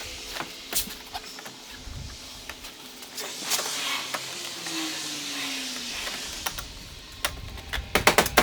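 Scattered clicks and knocks of interior trim panels being handled and fitted under a car's dashboard, with a short falling squeak in the middle and a quick run of clicks near the end.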